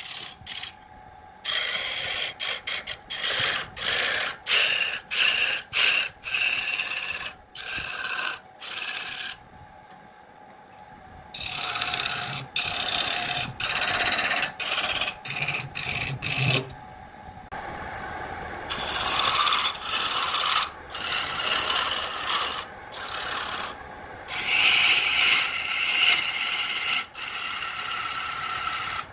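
A gouge cutting a wooden spindle spinning on a lathe: a rasping hiss of shavings coming off in repeated passes about a second long, with short gaps, two longer lulls about a third of the way in and past the middle, and a faint steady hum underneath.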